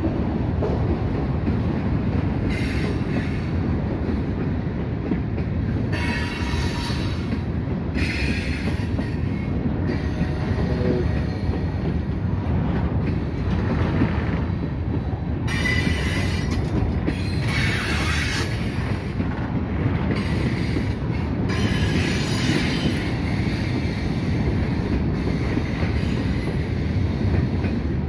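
Freight train's hooded coil cars rolling past at a grade crossing: a steady low rumble of wheels on rail. Short bursts of high-pitched metallic squeal come every few seconds.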